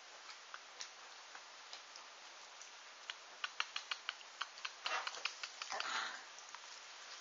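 Chihuahua puppies' claws and paws scrabbling as they play on a padded dog bed: a string of small sharp clicks that quickens about three seconds in, then a short rustling scuffle around six seconds, over a steady hiss.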